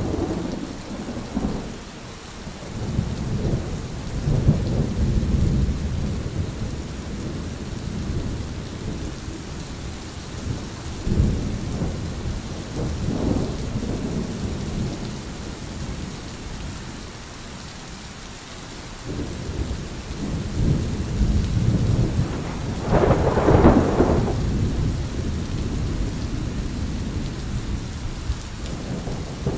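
Thunder rolling in several long low rumbles over steady rain. The loudest and sharpest peal comes about three-quarters of the way through.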